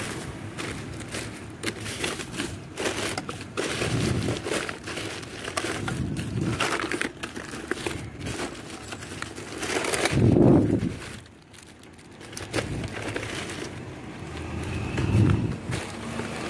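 Plastic trash bags crinkling and rustling as gloved hands rummage through them and shift discarded phone parts, with irregular crackles throughout. A louder low swell rises and fades about ten seconds in, and a smaller one comes about fifteen seconds in.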